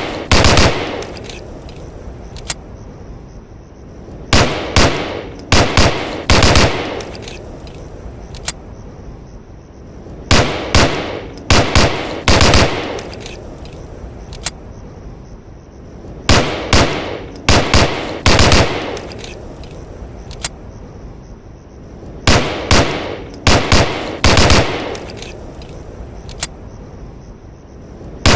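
M1911A1 .45 ACP pistol firing: strings of four or five quick shots about every six seconds, with a single shot between strings, each shot followed by a short ringing tail.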